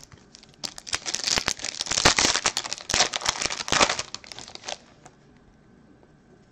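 Foil trading-card pack wrapper being torn open and crinkled by hand: a dense crackling that starts under a second in and stops about five seconds in.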